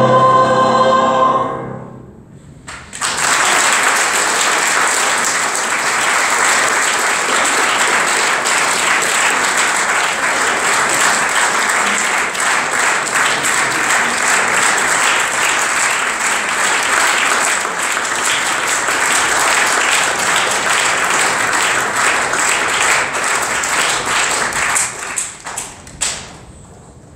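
Audience applauding steadily for about twenty seconds, starting about three seconds in and dying away near the end. Just before it, a mixed group of singers ends a song together.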